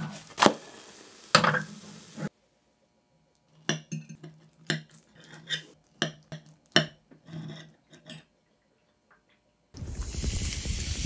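Kitchen utensils clinking and tapping against dishes: two sharp knocks, a pause, then a series of about eight separate taps. A loud steady hiss starts near the end.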